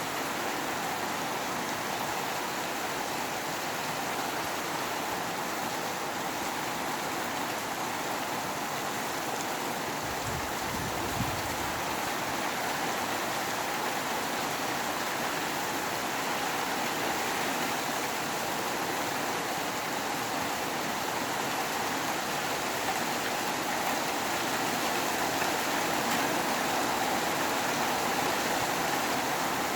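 Steady rain with wind, an even hiss throughout, with a brief low rumble about ten seconds in.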